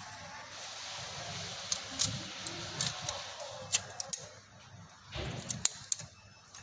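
Scattered small, sharp clicks and ticks at irregular intervals over a faint steady hiss.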